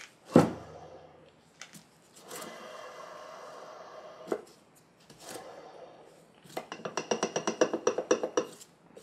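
Transfer case bearings spun by hand: a sharp metallic knock, then a bearing whirring with a metallic ring, and near the end a fast run of clicks, about eight a second. The bearing is a little loose and a little noisier.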